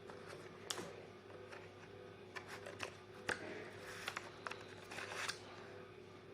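Pokémon trading cards being handled: scattered soft clicks and brief rustles as cards are flipped and slid one at a time, over a faint steady hum.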